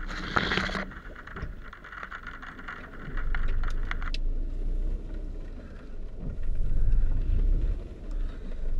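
Leafy branches of a fallen tree rustling and scraping against a slowly moving car. A loud rustle about a second long opens it, followed by scattered scratches and clicks. From about four seconds in the sound turns to a muffled low rumble.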